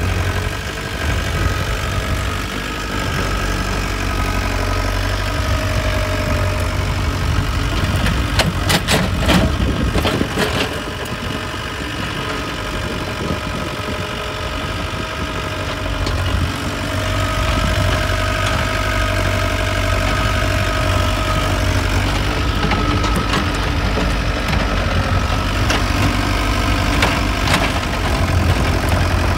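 IHI mini excavator's diesel engine running steadily while the machine tracks and digs soil, with a whine that comes and goes as it works. A cluster of sharp clanks and knocks about a third of the way through, and a few more near the end.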